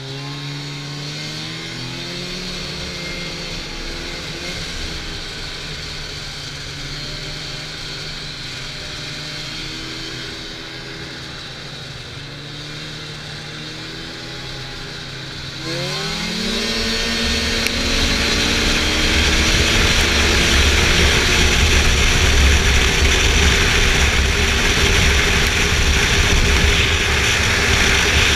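A Polaris Indy Lite Deluxe snowmobile's two-stroke engine cruising along a trail, its pitch rising and falling with the throttle. About halfway through it revs up sharply and settles into a louder, higher steady run at speed, with a rushing noise of wind and track beneath it.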